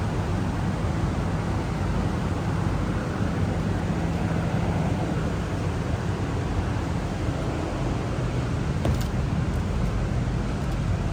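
A vehicle engine running steadily, a low hum under an even rushing noise, with a few faint ticks near the end.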